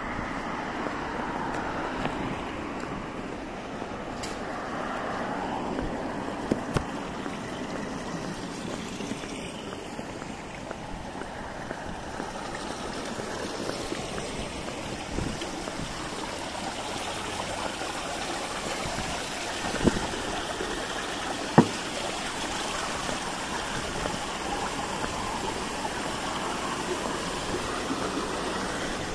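Shallow water running across a paved plaza water feature and spilling over its stone edge: a steady rushing trickle. A few sharp knocks cut through it, a quick pair about six seconds in and two more around twenty seconds.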